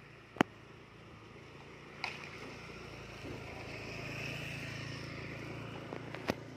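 A vehicle engine passing at a distance, swelling about two seconds in and easing off near the end. Sharp clicks near the start, about two seconds in and near the end; the first is the loudest sound.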